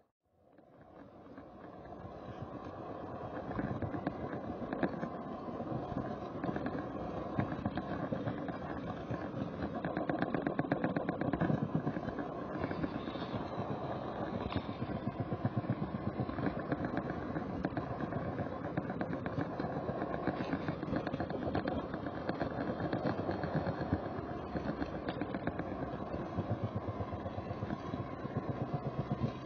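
Model camera train running on the layout's track, its small electric motor and wheels heard close up through the camera riding on it, with a rapid fine clatter from the track. The sound builds up over the first few seconds, then runs steadily.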